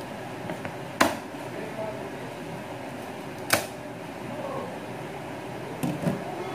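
Kitchen knife cutting through cooked pork and striking a wooden cutting board: a sharp knock about a second in, another midway, and two quicker ones near the end, over a steady background hum.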